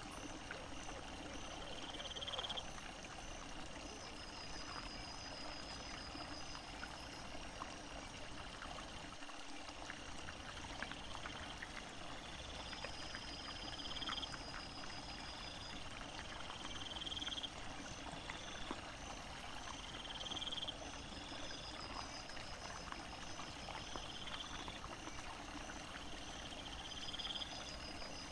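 Steady babble of a small woodland stream, with a short high chirp repeating every couple of seconds and scattered faint rustles and ticks in leaf litter.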